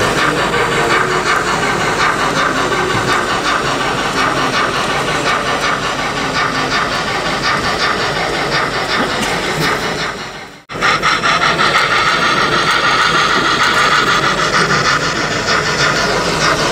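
N gauge model train running on the layout: a steady hissing rush with fine, fast clicking of wheels on track. It cuts out briefly about ten and a half seconds in, then carries on.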